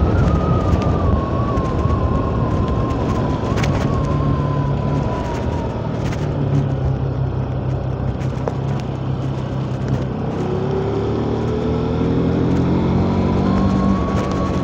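Bajaj Pulsar NS200's single-cylinder engine running on the move, with wind rushing over the microphone. The engine note falls over the first few seconds as the bike slows, then climbs again as it accelerates near the end.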